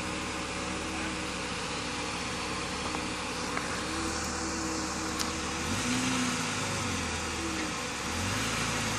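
Jeep Grand Cherokee WJ's engine running at low revs as it crawls over rock, its note rising about six seconds in and again about eight seconds in, with a few faint clicks.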